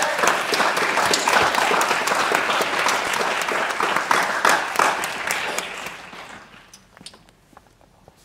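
Audience applauding, dying away about six seconds in, with a few last scattered claps.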